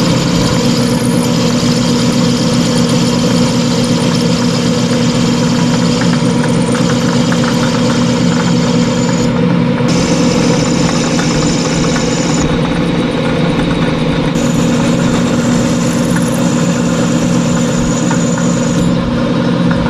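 Metal lathe running steadily, its motor and spinning chuck giving a constant hum while a cutoff tool parts thin spacer washers from bar stock.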